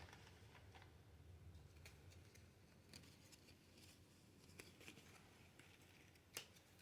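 Near silence with faint clicks and light rustles of trading cards being handled, the sharpest click near the end.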